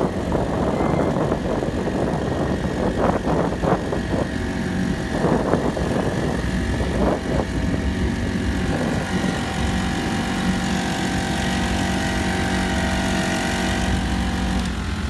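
Honda GX35 35cc four-stroke single-cylinder outboard motor running steadily under way, pushing a small pontoon boat. A rushing noise lies over it, with uneven gusts in the first half.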